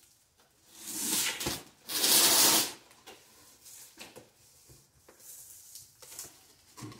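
Cardboard scraping and rubbing as a long shipping box is handled and its flaps opened: two longer scrapes in the first three seconds, then lighter rustles and small taps.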